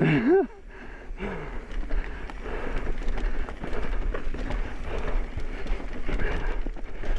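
Mountain bike riding down a muddy dirt trail: tyre noise on the dirt and many small rattles and knocks from the bike, over a steady low rumble.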